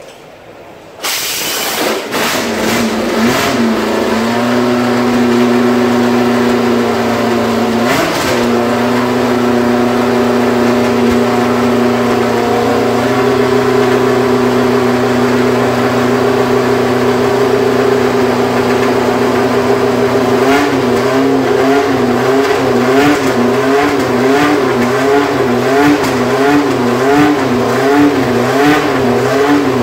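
Williams FW08 Formula 1 car's Ford-Cosworth DFV V8 firing up suddenly about a second in and settling into a loud, steady idle, with a short blip of the throttle partway through. In the last third the revs rise and fall over and over in a quick, even wobble.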